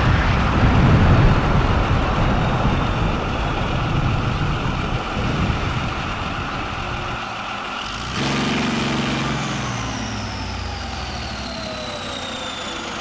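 Tank engine sound effect running steadily after a firecracker explosion, whose loud rumble fades over the first couple of seconds. About eight seconds in a new, lower engine note comes in, and long falling whines sound near the end.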